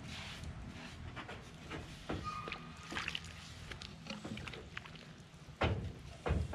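Aluminium pressure canner pot being scrubbed with a scrub pad and turned in a galvanized tub of soapy water: water sloshing with irregular scrapes and knocks, and two heavier thumps near the end.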